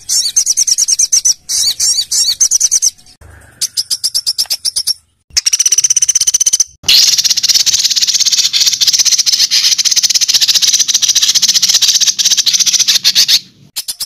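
Songbird song of harsh, rapid-fire high notes ('tembakan kasar'): several short fast phrases broken by brief gaps, then one long dense rattling run from about seven seconds in that cuts off abruptly near the end.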